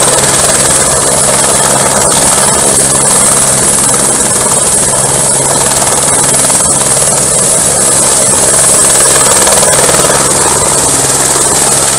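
Firefighting helicopter hovering low over the water while its bucket fills, the rotor noise loud and even under a steady high whine.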